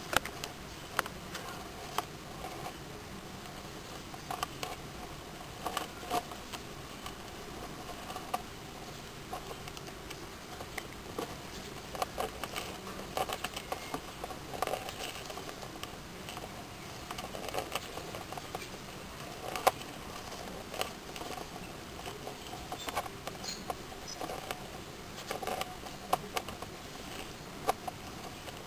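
Irregular light clicks and scrabbling taps as two hermit crabs' shells and legs knock against each other and the gravel, a few sharper knocks among them, over a steady faint hiss.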